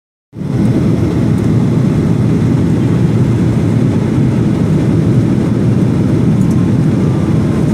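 Steady jet airliner noise, a loud even rumble of engines and airflow as heard inside the cabin. It starts abruptly at the very beginning and holds level throughout.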